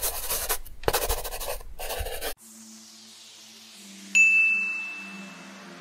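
Scribbling sound effect of a pen writing on paper, in quick strokes, cutting off abruptly about two and a half seconds in. Soft synth music follows with a falling whoosh, and a single bright chime rings about four seconds in and fades out over a second and a half.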